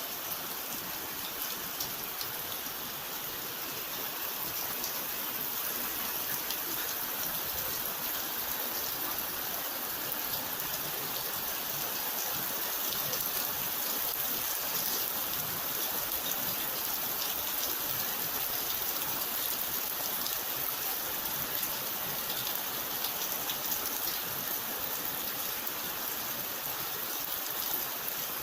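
Steady rain falling: a dense, even hiss of many drops, with a few individual drops ticking through it.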